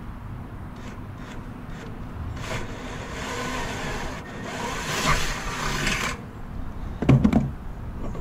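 Cordless drill with a half-inch bit boring through deck boards: a grinding, rasping noise that builds from about two and a half seconds in and stops at about six seconds. A few sharp knocks follow about a second later.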